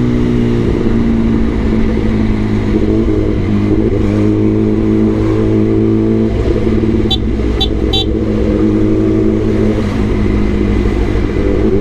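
Kawasaki ZX-10R's inline-four engine running at steady low revs while riding in slow traffic, its pitch shifting slightly a few times. A few brief high ticks sound about seven to eight seconds in.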